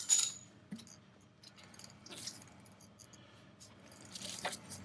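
Faint scattered clicks and scrapes of a wrench turning the belt-tension adjuster bolt on a Zero SR/F's rear axle, beginning with a sharper clack.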